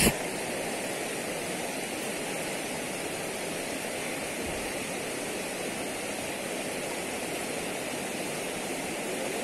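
A swollen, fast river rushing over a rocky bed in steady rapids, running high after torrential rain.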